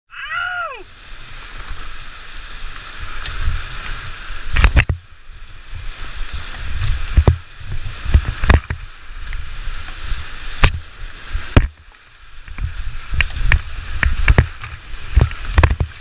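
Rushing whitewater with a heavy low rumble and repeated sharp knocks. A short falling tone sounds at the very start.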